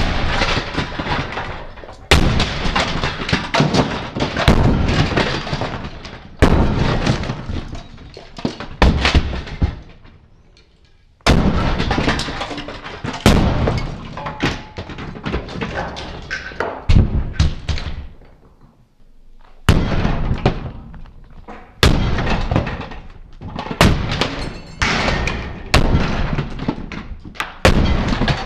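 Cheap plastic knock-off toy trains and track being smashed: about a dozen loud cracking impacts one to two seconds apart, each followed by a short rattle of plastic pieces.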